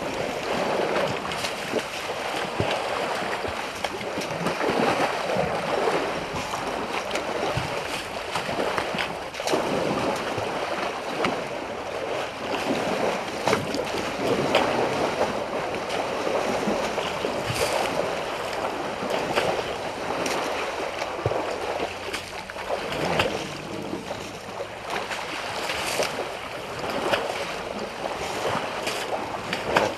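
A herd of African bush elephants splashing and wading in a shallow waterhole. The water sloshes continuously, broken by frequent short, sharp splashes as the animals move and roll.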